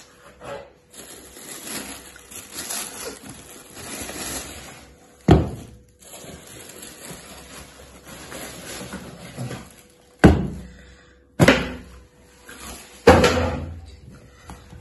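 Shoe box being unpacked: soft rustling of cardboard and tissue paper, broken by four sharp knocks, one midway and three close together near the end.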